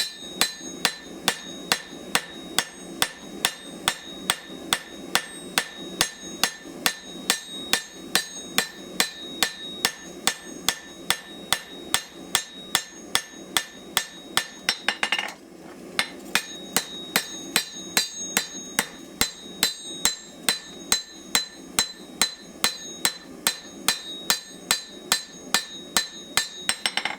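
Hand hammer striking hot steel on an anvil in a steady rhythm, about two or three blows a second, with the anvil ringing after each blow. The curved face of the hammer is drawing out a knife blade. The blows pause briefly about halfway through, then carry on.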